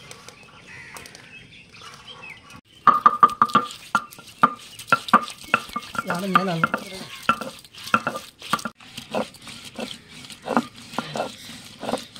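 A metal ladle stirring and knocking against a metal pan, in quick ringing clinks that start about three seconds in. A short wavering voice-like call comes about six seconds in.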